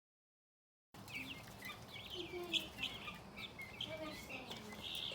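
Pet budgies chirping and chattering: a quick run of short, high chirps that starts about a second in.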